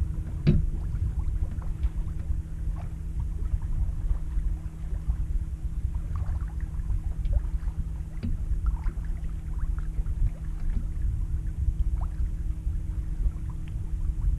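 Wind buffeting the microphone and water running along the hull of a sailboat under sail, as a fluctuating low rumble with a steady low hum beneath it. Faint light knocks and splashes come now and then, the clearest about half a second in and again about eight seconds in.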